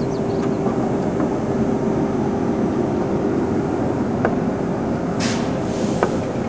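Muni PCC streetcar 1159 rolling slowly along yard track, a steady rumble of its running gear with a steady hum over it. A couple of sharp clicks from the wheels and track, and a short hiss about five seconds in.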